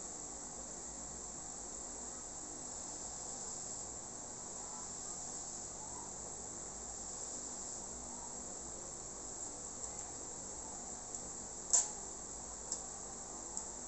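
A steady, high-pitched insect chorus. Near the end come a few short, sharp eating noises as noodles are slurped from the cup, the loudest a couple of seconds before the end.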